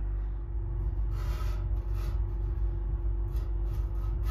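Handling noise: short rustles and rubs as the camera is moved and a steel rule is set against a steel car wing panel, over a steady low hum.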